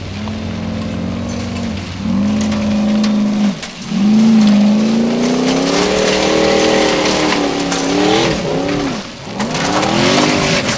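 Formula Offroad buggy's engine revving hard on a steep gravel hill climb, the revs rising and falling several times and dropping off briefly twice before climbing again. Paddle tyres throw gravel and stones, heard as a hiss with scattered clatters over the engine.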